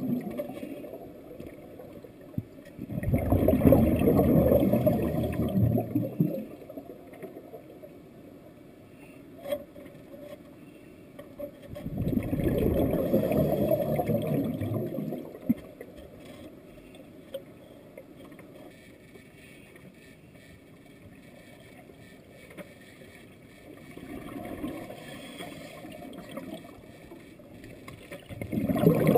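Scuba diver's exhaled bubbles pouring from the regulator underwater: a bubbling rush of two to three seconds that comes three times, roughly every ten seconds, with faint ticks and taps between.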